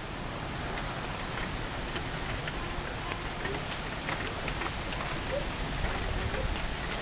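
Steady thunderstorm rain falling, with scattered drops ticking on nearby surfaces.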